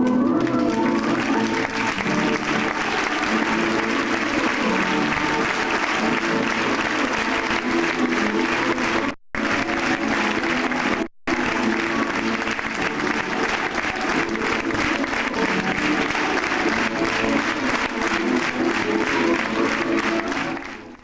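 Audience applauding over music with steady held chords. The sound drops out briefly twice near the middle.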